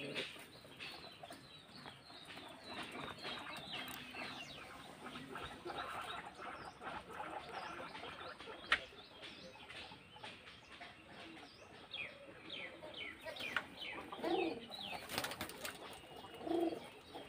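Faint chirping of small birds in quick, falling notes, with scattered light clicks and rustles throughout.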